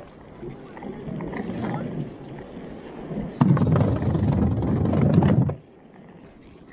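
Skateboard wheels rolling over an asphalt path, building steadily. About three and a half seconds in, the rolling turns into a much louder rumble as the board crosses a wooden plank bridge. It drops off suddenly about two seconds later, when the board is back on pavement.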